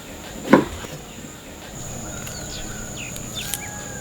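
Insects keeping up a steady high-pitched drone while birds chirp and whistle in short calls in the second half. One dull knock sounds about half a second in, and it is the loudest thing.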